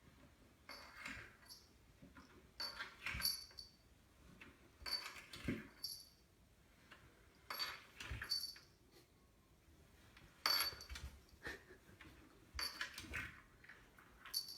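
A cat sliding down carpeted stairs one step at a time: a soft bump and rustle about every two seconds, seven in all.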